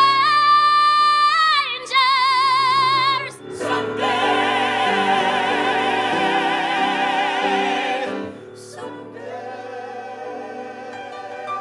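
Live show-tune singing: a woman belts a long high note with vibrato, then after a break a group of singers holds a loud final chord with vibrato for about four seconds, and softer music follows near the end.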